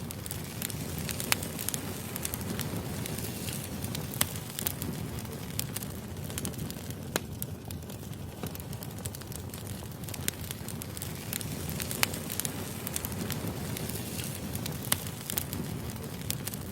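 Firewood burning, with a steady low rustle under irregular sharp crackles and pops.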